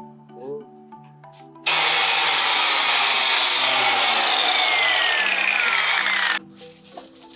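Electric angle grinder cutting a thin ferrocement slab: loud grinding with a whine that slowly falls in pitch as the disc bites. It starts suddenly about a second and a half in and stops suddenly near the end, with light marimba-like background music before and after.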